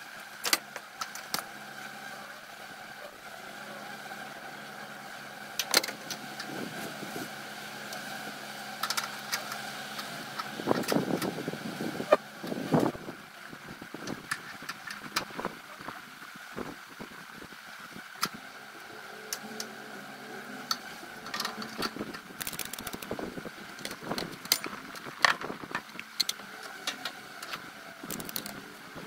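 Honeybees flying around a trailer load of stacked beehive boxes, a steady hum under scattered sharp clicks and knocks. A cluster of louder knocks and clatter comes about eleven to thirteen seconds in.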